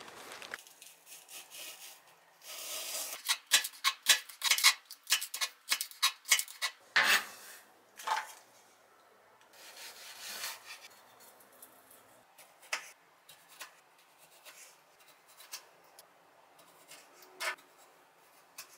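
Kitchen knife chopping vegetables on a cutting board: a quick run of knife strokes, then slower, scattered cuts later on as cherry tomatoes are sliced.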